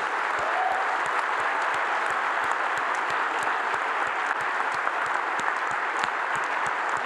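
Audience applauding, a steady round of clapping that keeps going without a break.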